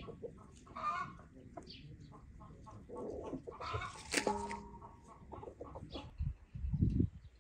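Chickens clucking, with two louder calls about one and four seconds in.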